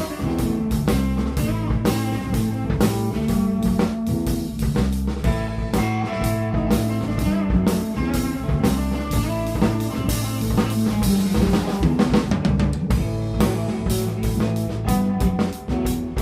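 Instrumental rock band playing: a busy drum kit with snare and bass drum hits over electric bass and guitar, with a brief break in the loudness near the end.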